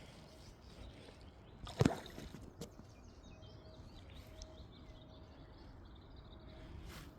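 Faint outdoor background with quiet birdsong, broken by a single sharp knock about two seconds in and a small click just after.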